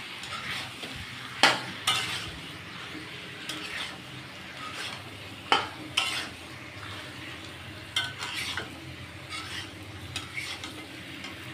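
Metal spatula stirring chicken, potato and onion pieces in a kadhai while the masala sizzles and fries in the oil, with no water added. Sharp scrapes and knocks of the spatula against the pan come about a second and a half in, twice around six seconds, and again near eight seconds.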